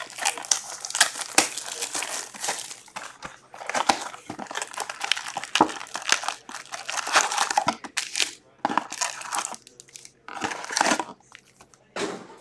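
Foil packs of Upper Deck hockey cards crinkling and rustling as they are handled out of their cardboard box and stacked, with sharp clicks and taps from the cardboard and the packs being set down. The rustling is irregular, busiest in the first two thirds, and thins out with short pauses near the end.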